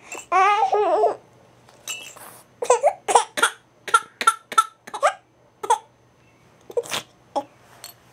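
Baby fussing into a cry: a wavering wail near the start, then a run of short, choppy sobs.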